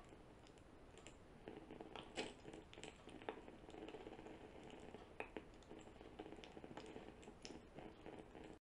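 Near silence: faint room tone with a few scattered light clicks and taps.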